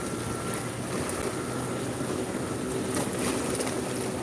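A small outrigger fishing boat's engine running steadily over the wash of moving water.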